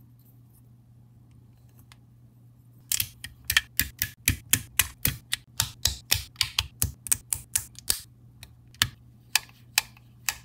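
Plastic LEGO pieces clicking and snapping as they are pressed together. A quick run of sharp clicks starts about three seconds in, at about four or five a second, and thins to a few single clicks near the end.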